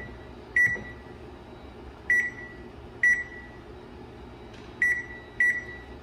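Microwave oven keypad beeping as its buttons are pressed to set the clock: five short, high-pitched beeps at uneven intervals.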